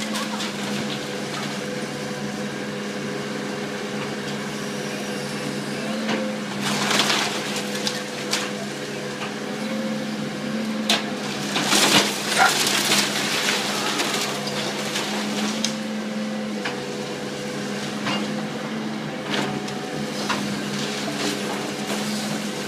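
A demolition machine's engine runs steadily while the wooden frame of a house cracks, splinters and crunches as it is torn apart. The breaking is loudest about seven seconds in and again around twelve seconds in.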